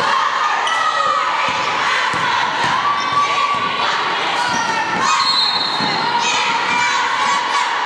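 Crowd of spectators and kids shouting and cheering during a basketball game, with a basketball bouncing on the gym floor.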